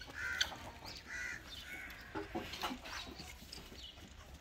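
A few short bird calls, with some light knocks in between.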